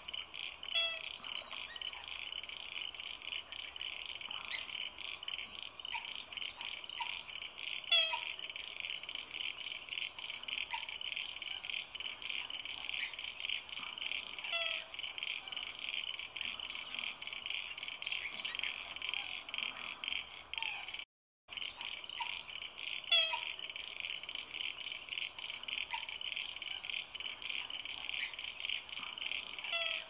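A steady wetland frog chorus: a dense, rapidly pulsing trill, with a few short calls that slide downward in pitch standing out above it about four times. The sound cuts out for a split second about two-thirds of the way through.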